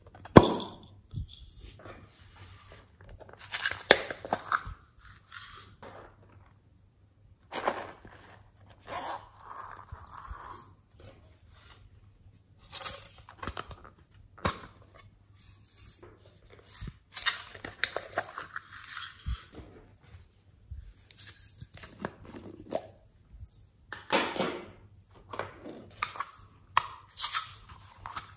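Small plastic containers being opened and handled: irregular clicks, snaps and scrapes of plastic lids and cases, in bursts of about a second with short pauses between.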